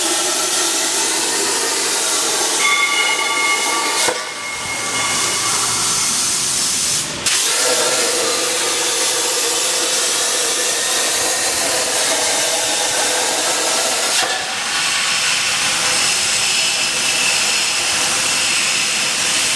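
Plasma cutting torch of a CNC pipe cutting machine, hissing steadily as it cuts, with a faint whine that shifts in pitch. The hiss dips briefly three times, with a short cut-out about seven seconds in.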